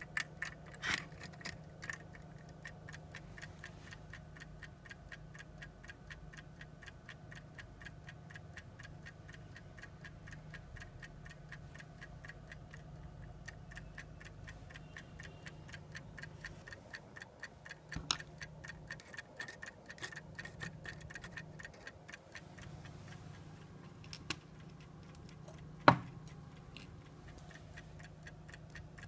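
A clock movement ticking quickly and evenly, with a steady low hum beneath. A few louder knocks break in, the sharpest about three-quarters of the way through.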